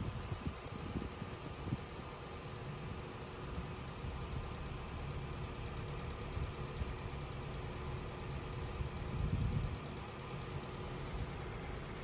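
A steady low mechanical rumble with a faint constant hum, and wind buffeting the microphone near the start and again about nine seconds in.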